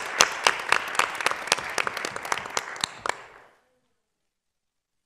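Audience applauding, the clapping thinning out and cutting off suddenly about three and a half seconds in.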